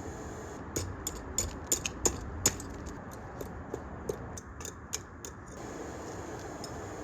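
Steady rush of a hair dryer blowing air into a scrap-softwood forge fire, with irregular sharp crackling pops from the burning wood, clustered through the first five seconds.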